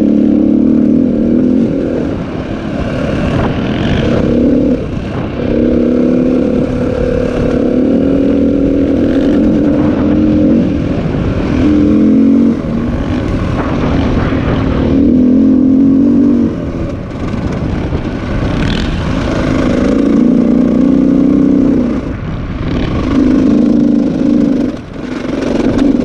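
Dirt bike engine under way on a dirt trail, heard from the bike carrying the camera: the revs rise and fall as the rider works the throttle, with several brief easings-off.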